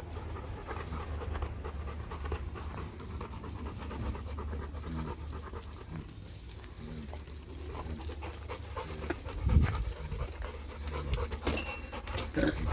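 A dog panting, with scattered short low noises. There is a dull low thump about nine and a half seconds in.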